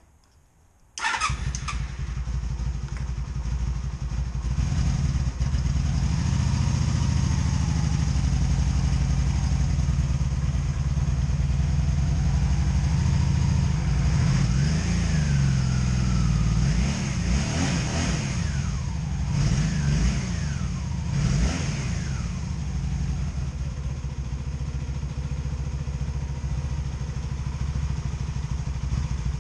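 Honda Magna VF750C's V4 engine starting about a second in, then idling with a few blips of the throttle past the middle. It is misfiring: missing, with a little popcorn popping on one side.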